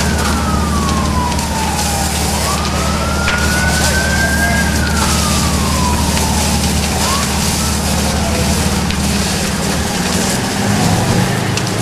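An emergency vehicle siren wailing, slowly falling and rising in pitch, then stopping about seven seconds in. Under it run a steady low engine drone and a constant hiss.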